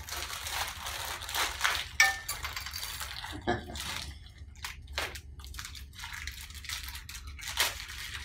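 Clear plastic packaging bag crinkling and rustling as it is handled and opened by hand, with a sharp click about two seconds in.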